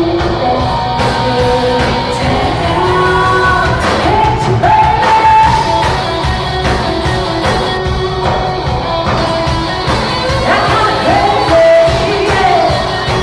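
Live band playing a rock-pop song: a woman singing lead over acoustic and electric guitars, bass and drums.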